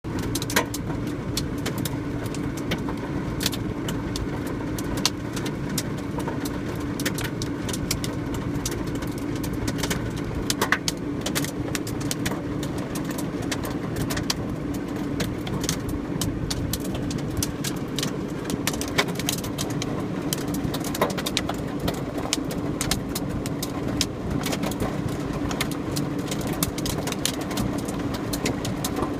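Hailstones pelting a car's body and windows in many irregular sharp taps, over the steady low hum of the car's engine idling.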